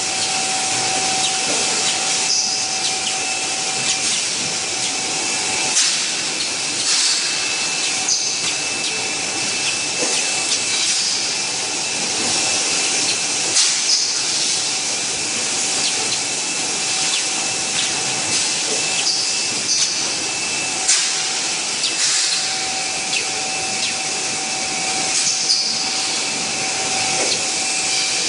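Bottle conveyor and packing machinery running steadily: a constant mechanical din with a steady whine, and short sharp air hisses every second or few.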